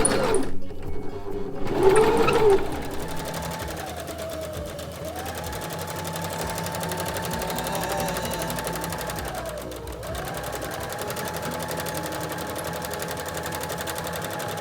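Janome My Style 5027 sewing machine stitching: a fast, even needle rattle over a motor whine that speeds up and slows down. It slows about five seconds in and almost stops near ten seconds, then picks up again.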